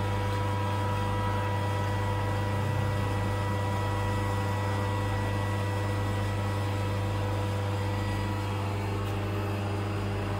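Workshop machine running with a steady electric hum: a strong low drone with several fainter steady tones above it, unchanging throughout.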